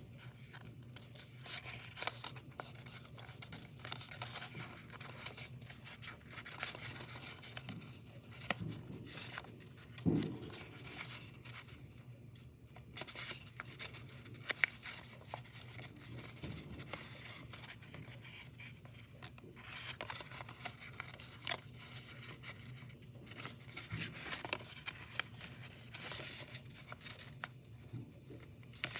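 Creased origami paper crinkling and rustling as fingers fold and pinch it along its creases, in irregular bursts with a few sharper crackles, over a faint steady low hum.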